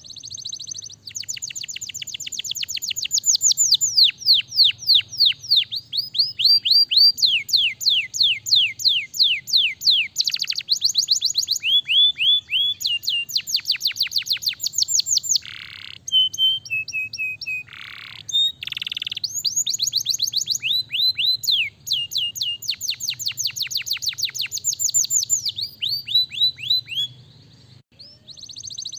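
Domestic canary singing a long, loud song of rapid trills: runs of fast falling notes that change every second or two, with a few longer buzzy notes about halfway through and a brief pause near the end.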